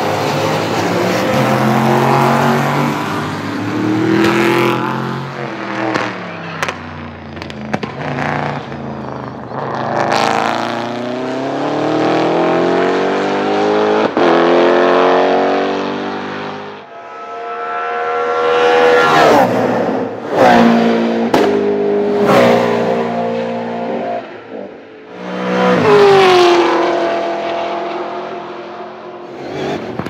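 V8 touring race cars running at speed, several passing one after another, each engine climbing in pitch and breaking off sharply at the gear changes before climbing again.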